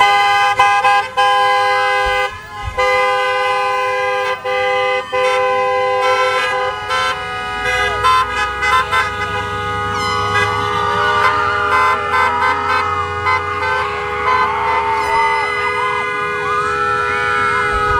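Several car horns honking at once and held down almost without a break, their tones overlapping as a line of cars drives slowly past, honking in celebration.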